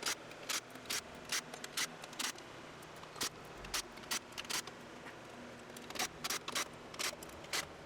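Irregular metallic clicks and clinks of tools and engine parts being handled, several a second with short pauses between.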